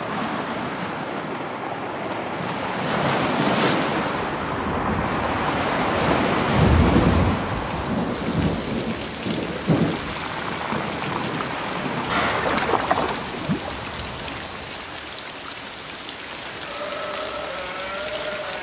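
Rain falling on water in a storm, with wind, and low rumbles of thunder twice in the middle.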